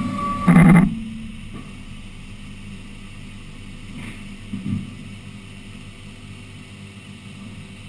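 Woodworking CNC machine machining a wooden door: a steady high tone and a loud burst of noise end within the first second, then the machine runs on with a steady low hum.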